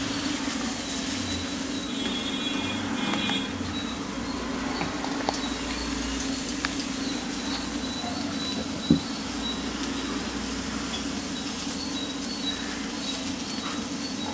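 Steady hum and hiss of a lit gas stove burner heating an empty aluminium kadai, with a few light ticks and one short knock about nine seconds in.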